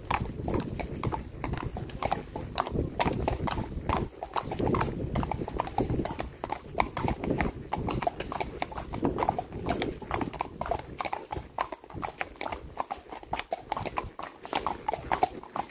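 Hooves of several horses walking on a wet asphalt road: a continuous, uneven clip-clop of hoof strikes.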